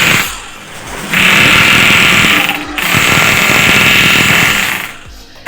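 5 kg 0810-type electric demolition breaker hammer running in long spells of rapid blows, released for about a second after the start, briefly near the middle, and again near the end. The hammering is even, with no abnormal noise, after a full service.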